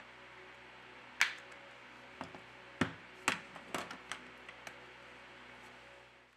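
Sharp plastic clicks and taps as the Huawei Y6s back cover is pried off its frame and handled: about a dozen over three or four seconds, the first the loudest, over a faint steady hiss that cuts out near the end.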